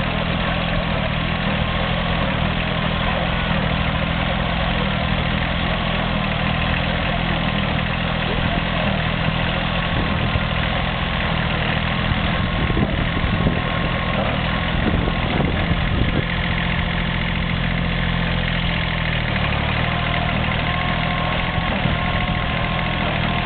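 Kubota B7001 compact tractor's diesel engine running steadily while driving a Heywang Olympic 750 small square baler baling straw, with the baler's knocking and clatter, most marked a little before halfway through.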